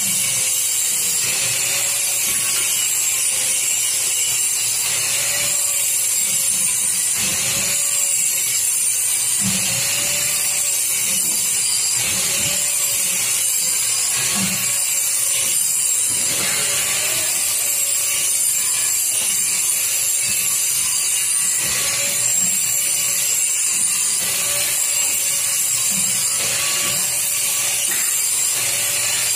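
Steady machinery noise in a sheet-metal fabrication shop: a loud whir and hiss with a tone that wavers up and down about every two seconds, and now and then a short knock of metal.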